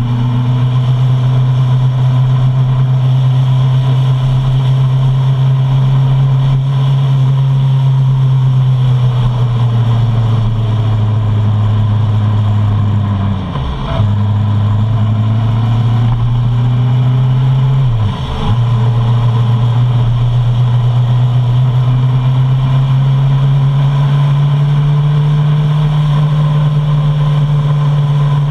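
Suzuki Bandit 650's inline-four engine running under way on the open road, its note sinking slowly at first, then rising steadily toward the end. The note dips sharply and briefly twice, about halfway through and a few seconds later, as the rider changes gear.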